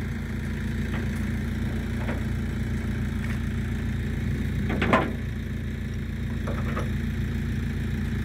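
An engine idling steadily with a low, even hum, with a single short sharp knock about five seconds in.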